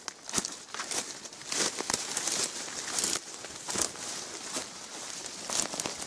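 Footsteps crunching on dry leaf litter along a forest trail, an uneven walking pace of a step roughly every half to three-quarters of a second.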